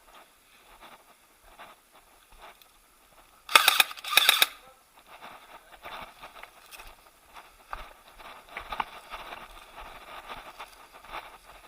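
Two short full-auto bursts from an airsoft electric gun (AEG), each about half a second of rapid pellet fire, about three and a half seconds in. After them comes a long run of fainter scuffs and rustles.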